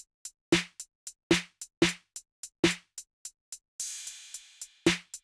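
Drum-machine hip-hop beat without vocals: sharp drum hits with light hi-hat ticks between them. A little before four seconds in, the drums drop out for a hissing wash that fades away, and the beat comes back near the end.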